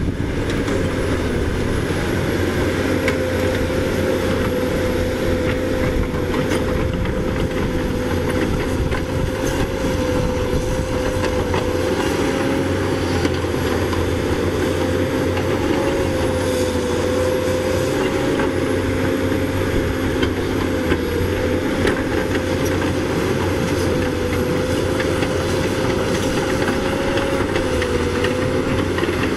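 CAT 320D hydraulic excavator running, its six-cylinder diesel engine and hydraulics making a steady drone with a high whine that wavers slightly in pitch, over a light rattle of the machine's steel parts.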